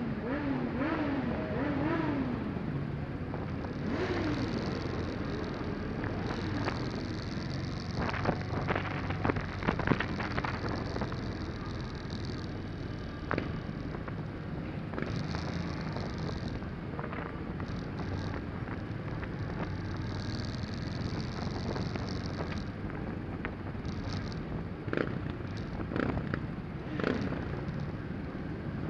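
Cruiser motorcycles running at low speed in a slow group ride, heard from a camera mounted on one of the bikes: a steady engine drone with a few short rising-and-falling pitch swings in the first seconds and some brief knocks partway through.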